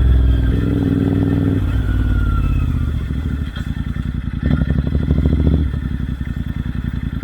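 Royal Enfield Interceptor 650's parallel-twin engine running through Red Rooster Performance aftermarket exhausts. The revs fall off the throttle to a slow, lumpy burble, with a short blip of throttle about four and a half seconds in before it settles back.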